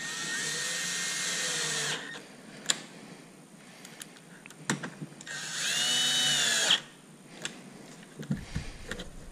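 Cordless drill/driver running twice, for about two seconds and then for about a second and a half, driving bolts. A few sharp clicks and taps come in between.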